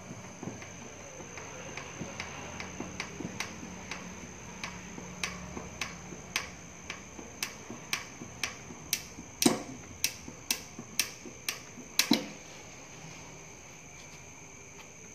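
Light hammer blows at about two a second, getting heavier from about six seconds in, with the hardest blows near the end before they stop. A steady high whine sits underneath.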